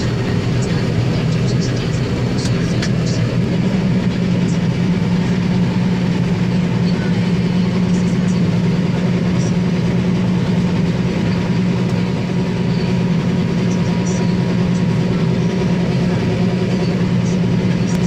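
Combine harvester running steadily while its unloading auger pours wheat into a trailer: a constant machine drone whose low hum grows stronger a few seconds in.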